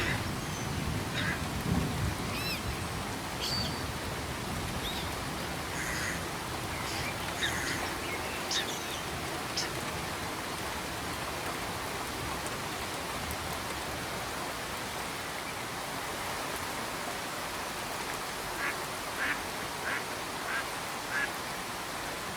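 Steady rain falling, with short bird calls scattered through it and a quick run of four or five calls near the end.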